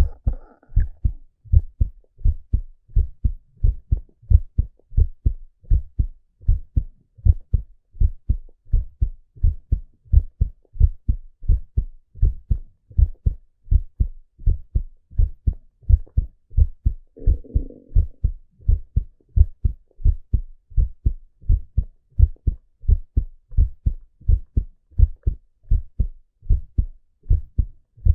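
A man's heartbeat heard through a stethoscope: a steady, regular run of low, dull thumps.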